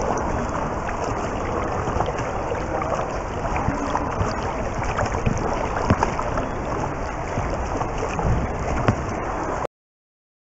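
Churning and bubbling water from a swimmer's front crawl arm strokes and kicks, heard from underwater in a pool, a steady rushing noise with scattered small clicks and knocks. It cuts off abruptly shortly before the end.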